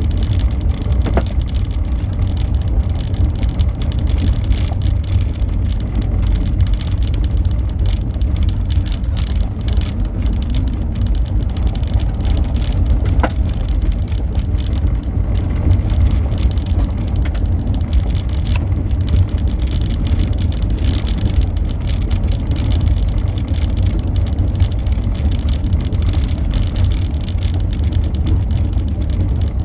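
Car driving on a gravel road, heard from inside the cabin: a steady low rumble of engine and tyres on the loose gravel, with a couple of faint ticks.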